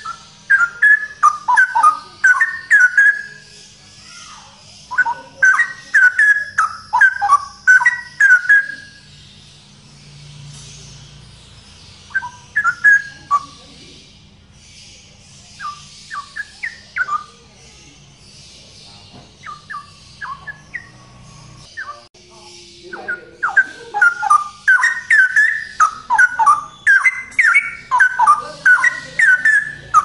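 Male straw-headed bulbul singing loud, rich warbling phrases of quick notes. A long bout opens, shorter and softer phrases follow, and another long, loud bout starts about three quarters of the way through.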